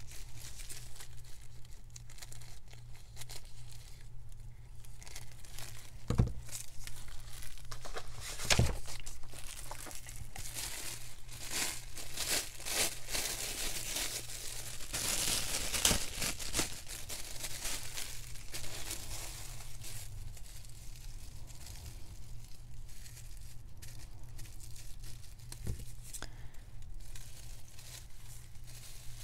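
Thin plastic produce bag crinkling and rustling as it is handled and cut open, busiest about halfway through, with a few dull knocks on the table.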